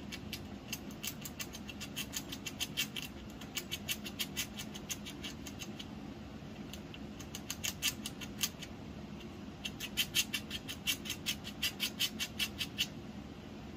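Eastern gray squirrel gnawing with its incisors: rapid scraping clicks, about six a second, in runs of a few seconds separated by short pauses.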